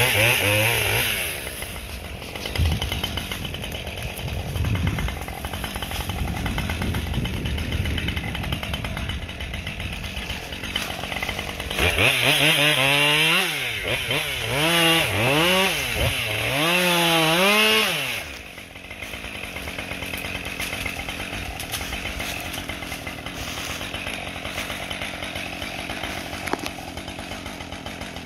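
A two-stroke chainsaw running. About halfway through its pitch rises and falls three times as it is revved up and back down. It then drops back to a steady low run.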